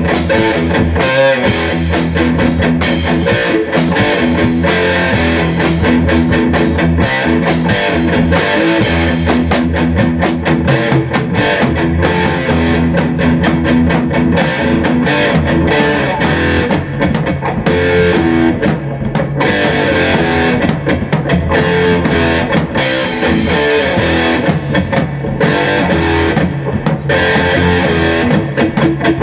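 Electric guitar and a drum kit playing a rock jam together, the guitar sustaining chords over dense drum and cymbal hits.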